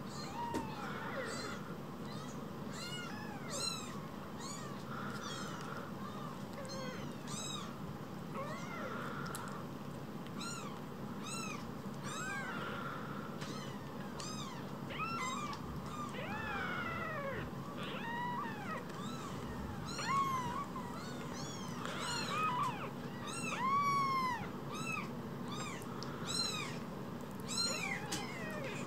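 Newborn tabby kittens mewing: many short, high-pitched, arching cries, one after another, growing a little louder in the second half.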